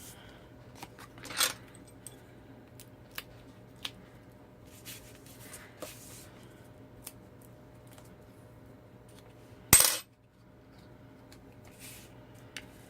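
Paper-crafting handling sounds: scattered light clicks, taps and short rustles of cardstock and double-sided adhesive tape being worked by hand, with one loud sharp knock a little under ten seconds in.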